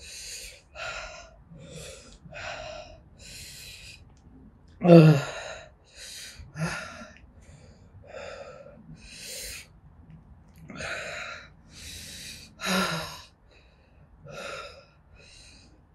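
A woman breathing hard through her open mouth, with sharp gasps about once a second and a couple of louder voiced gasps, from the burn of the Carolina Reaper peppers she is eating.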